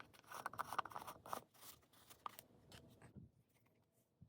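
Faint scraping and scratching of a tool working modeling paste on a flat mixing surface. It is strongest for about the first second and a half, then thins out and fades to near silence about three seconds in.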